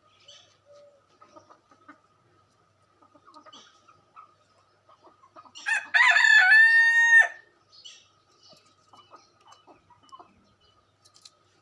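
Rooster crowing once: a single cock-a-doodle-doo of about a second and a half, starting with a short note and ending on a long held one, a little past the middle.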